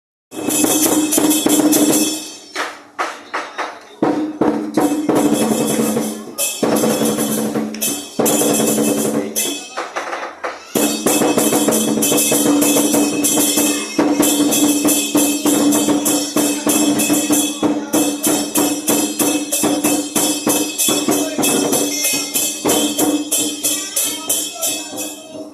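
Chinese lion dance percussion: drum, clashing cymbals and gong played in a fast, loud rhythm, with a steady ringing tone underneath. It starts just after the opening, thins out briefly around three seconds in and again near ten seconds, then runs on dense.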